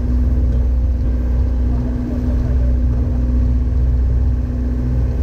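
A fishing boat's engine running steadily under way: a constant low drone with a steady hum, over the wash of the wake.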